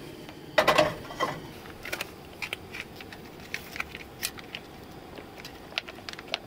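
A small metal saucepan clanks onto the wire grate of a portable camp stove about half a second in, followed by scattered crinkles and light clicks as a package of pre-made chili is emptied into the pot.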